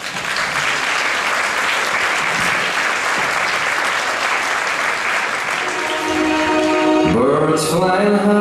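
Audience applauding at the end of a trapeze act. About six seconds in, music comes in over the applause, with a rising swoop of pitch near the end.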